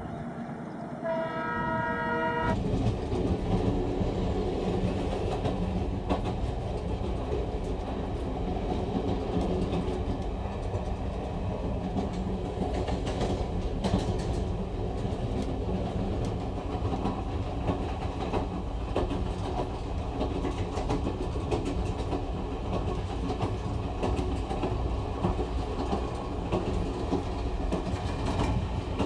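Train horn blowing for the first couple of seconds, shifting pitch once and cutting off. Then a steady heavy rumble of the train running along the rails, with the repeated clicking of wheels over rail joints.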